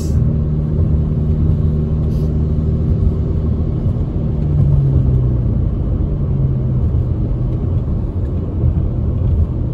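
Steady low rumble of a car driving on a wet road, heard from inside the cabin, with an engine hum that drops slightly in pitch about halfway through.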